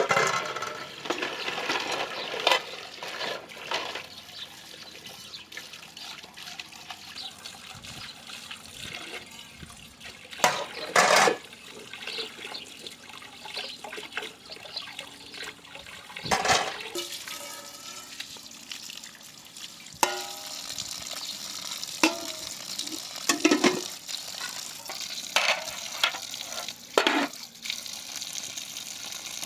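Kitchen work sounds: water splashing and running with irregular knocks and clinks of utensils and dishes, a few of them sharper and louder.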